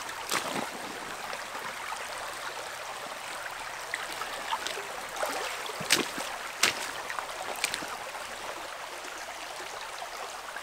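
Shallow stream running over rocks: a steady rush of water, broken by a few short sharp splashes, near the start and again around the middle, from water being scooped up and boots wading through the shallows.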